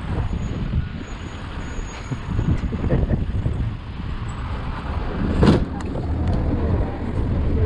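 Motorcycle moving slowly through city traffic: a steady low rumble of wind on the microphone, engine and traffic. A short sharp noise about five and a half seconds in.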